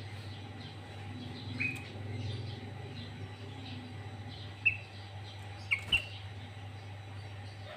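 Sooty-headed bulbul (kutilang) calling in short, sharp notes: one about a second and a half in and three between about four and a half and six seconds in, among faint chirping, over a steady low hum.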